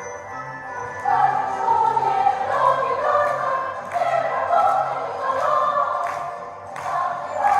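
Choir singing over music, with the voices coming in about a second in.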